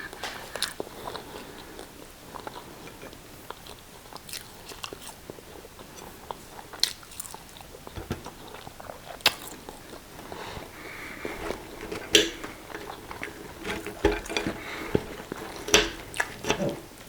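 People chewing and biting fries and sausage, with irregular sharp wet clicks and smacks.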